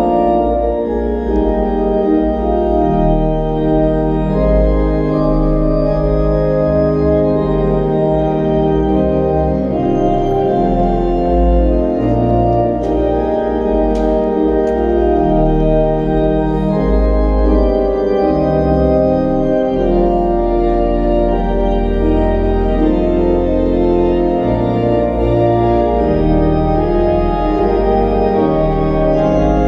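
Kimball theatre pipe organ playing full sustained chords over deep bass notes that change every second or two, with a couple of brief sharp ticks about halfway through.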